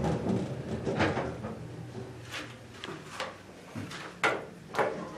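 Otis elevator at the lobby: a string of sharp knocks and clunks, irregularly spaced, over a faint low hum, with the loudest about four and a half seconds in.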